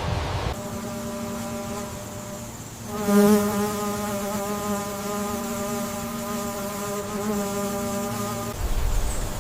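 A flying insect buzzing steadily at one pitch. It starts about half a second in, grows louder about three seconds in, and stops shortly before the end.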